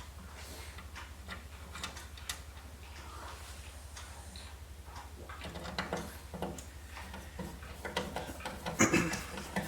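Screwdriver turning a screw into a motherboard mounting point: scattered small metallic clicks and ticks that grow louder and more frequent toward the end, with a few sharper knocks, over a steady low hum.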